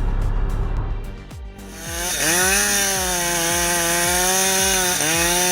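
Chainsaw revving up about two seconds in and held at high speed, easing off briefly near the end and revving back up. Background music with a steady bass beat plays throughout.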